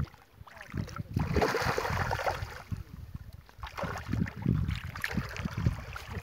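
A fish thrashing and splashing at the surface of shallow river water, in irregular bursts, as it is pulled in and grabbed by hand. Wind rumbles on the microphone underneath.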